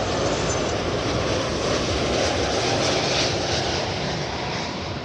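Airbus A330-300's Rolls-Royce Trent 700 turbofan engines on landing approach, passing low overhead as a loud, steady jet rush. It is loudest about three seconds in and begins to fade near the end.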